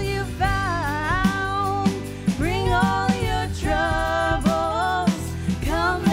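Live worship song: two women singing over an acoustic guitar and a Nord Electro 5 keyboard.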